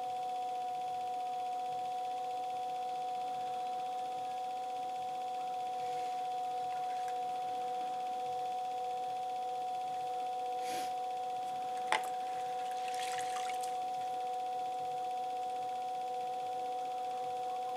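Steady, unchanging high whine of an electric potter's wheel motor spinning at constant speed. A couple of brief wet, splashy noises and one sharp click come about eleven to thirteen seconds in.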